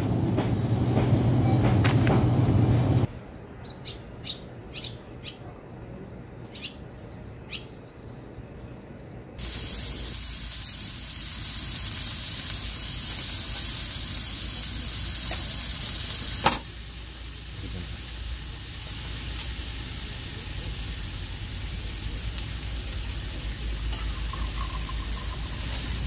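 A steady low store hum for the first three seconds, then a quiet stretch with short bird chirps. From about nine seconds in, beef and mushrooms sizzle on a griddle pan over a portable gas stove, a steady hiss broken once by a sharp click.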